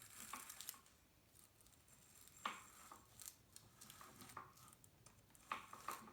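Faint scratching and a few light clicks from hands and a marker working on a fork's steerer tube as the cut line is drawn.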